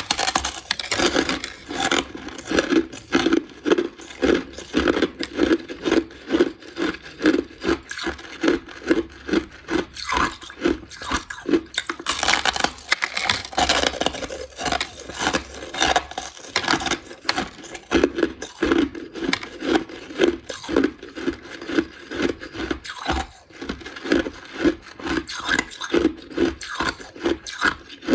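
Crushed ice being chewed close to the microphone: rhythmic crunching, about two chews a second, without a break.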